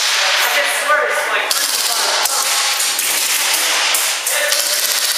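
Airsoft gunfire: a rapid series of sharp cracks and clicks from the guns, and BBs striking the plywood barricades.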